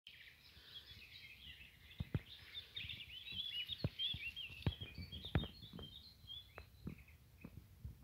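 Songbirds singing, many quick overlapping chirps, thinning out near the end. A few short soft thumps come through, the strongest about two, four and five seconds in.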